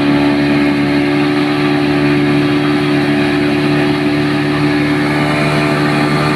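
An engine running steadily at an even speed: a constant hum with a hiss over it, with no change in pitch.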